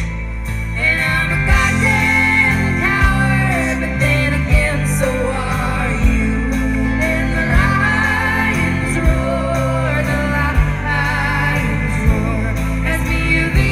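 Live band playing a folk song: women singing over guitars, bass and drums, with a drum hit about every one and a half seconds and heavy bass.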